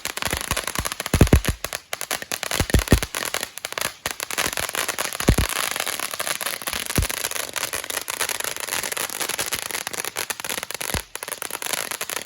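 A Barn Burner novelty firework burning with a dense, continuous crackle, broken by a few low thumps.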